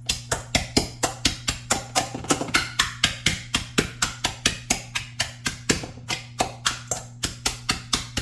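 Rapid, steady pounding of croutons in a plastic zip-top bag, about five hard knocks a second, crushing them into fine breadcrumbs, over a steady low hum.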